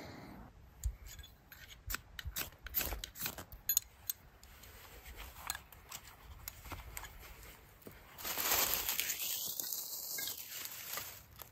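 Small twigs and fluffy tinder being handled with a run of sharp clicks, snaps and rustles. About eight seconds in comes a hissing rush lasting about three seconds as the tinder is lit and flares up under a teepee of sticks.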